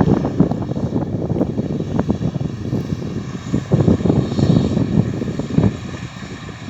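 Wind buffeting the microphone in irregular gusts, over the drone of harvest machinery working in the field.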